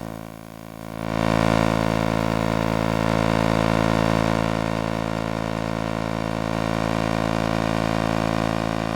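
Electromagnetic emissions from an iMac screen, picked up as sound: a steady electrical hum made of many layered tones. It dips briefly just after the start, swells back up about a second in, and then holds steady.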